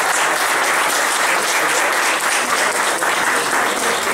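Audience applauding, steady clapping from many people.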